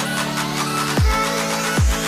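Background electronic dance music with deep falling bass drops and a steady beat.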